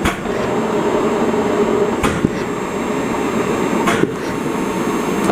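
Philips Respironics cough-assist machine (mechanical insufflator-exsufflator) with its blower running steadily, and a short sharp burst about every two seconds, three in all, as it is switched to negative pressure to draw a simulated cough from a breathing bag.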